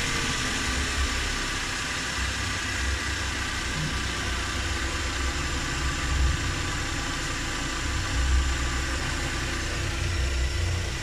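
Suzuki Every Wagon's K6A 660 cc three-cylinder turbo engine idling steadily just after starting, heard from inside the cabin. The idle holds steady, the sign that the freshly cleaned idle air control valve is working.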